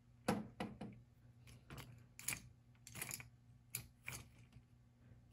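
Faint, irregular light clicks and taps, about a dozen in a few seconds, from a homemade animatronic eye mechanism being worked by hand: plastic eyeballs swivelling on a bolted aluminium frame with a linkage bar. A faint low hum runs underneath.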